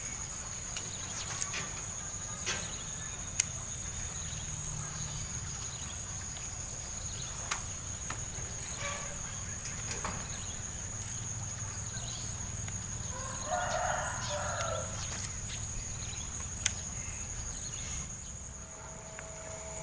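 Insects chirring steadily at two high pitches, with a chicken calling briefly about fourteen seconds in and a few sharp clicks scattered through.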